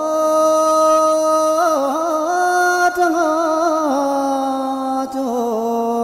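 Music: a single voice singing a slow melody in long held notes, with quick wavering ornaments between them.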